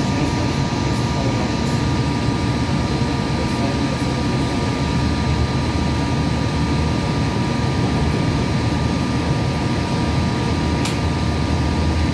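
Hudson-Bergen Light Rail car running between stations, heard from inside: a steady rumble of the wheels on the track with a constant high hum from the car's equipment. A single short click about eleven seconds in.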